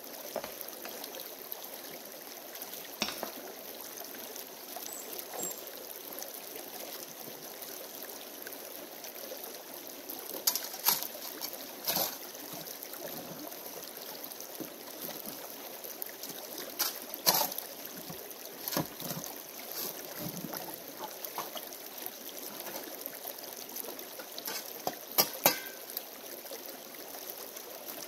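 Shallow creek running steadily over stones, with a shovel now and then knocking and scraping against the creek-bed gravel as paydirt is dug. The sharpest knocks come in short clusters about a third of the way in, around the middle, and near the end.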